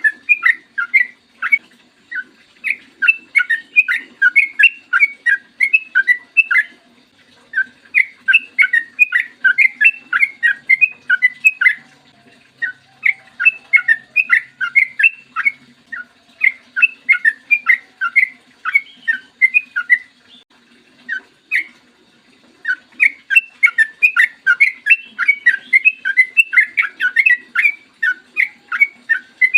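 Yellow-vented bulbul (trucukan) singing long, rapid runs of bubbly, chattering notes in bouts of several seconds, with short pauses between them.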